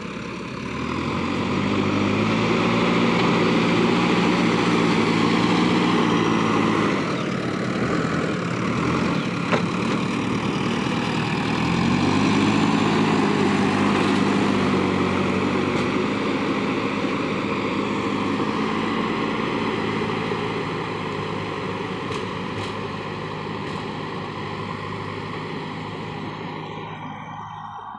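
Backhoe loader's diesel engine working under load as the front bucket pushes soil, revving up twice and easing off between. The sound grows fainter near the end as the machine moves away.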